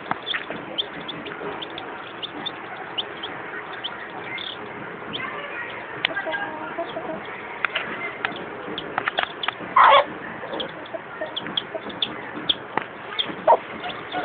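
Domestic chicks peeping in many short, high chirps while a hen clucks. A louder, fuller call stands out about ten seconds in.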